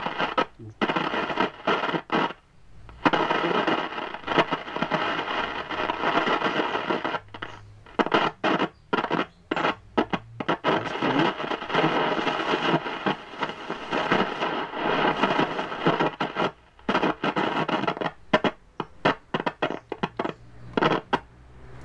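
Philco Ford Solid State 3 transistor radio hissing with static as its shortwave band is slowly tuned by hand. The signal cuts out abruptly many times, with faint wavering tones of distant stations in the noise.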